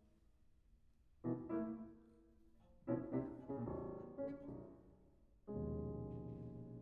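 Piano trio of piano, violin and cello playing contemporary chamber music: a quiet opening, then short clusters of struck piano chords about a second in and again about three seconds in, and a loud low chord held from about two thirds of the way through.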